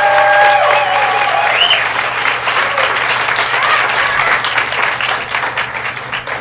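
Audience applauding and cheering, with a few whoops early on; the clapping fades gradually toward the end.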